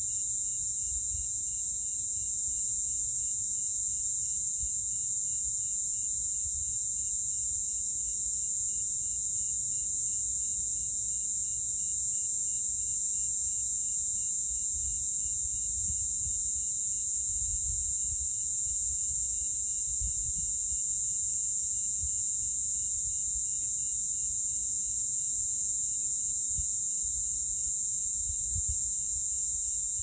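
Cicadas buzzing in a steady, unbroken high-pitched chorus.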